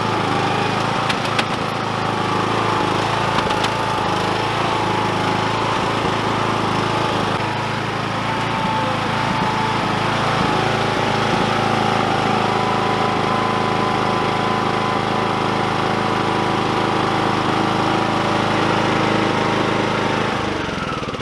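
Riding lawn mower engine running steadily under way, with a thin whine over the engine note. The engine sound drops off suddenly near the end.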